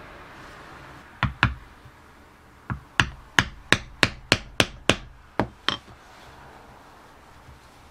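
A mallet striking a leather stitching chisel upright in the leather, punching stitch holes. Sharp taps: two quick ones, a single one, then a steady run of about nine at roughly three a second.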